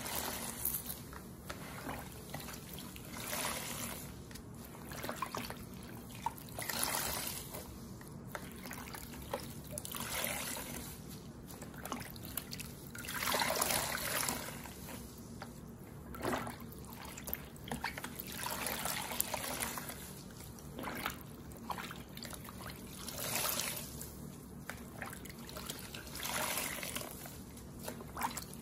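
Porous bath sponges squeezed and wrung by hand in a basin of plain rinse water, water trickling and splashing out of them. The squeezes come as swells every two to three seconds, the loudest about halfway through.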